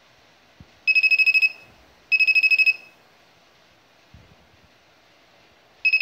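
Phone ringer circuit built on a 4060 IC, sounding through a small buzzer. It gives two short, high-pitched, rapidly pulsing trills a moment apart, like a telephone's double ring, and the next ring begins right at the end.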